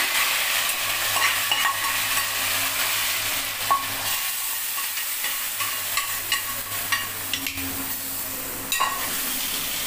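Hot oil and fried onions of a baghar (tempering) poured from a frying pan into a pot of haleem, sizzling steadily throughout. A metal ladle clinks against the pan a few times.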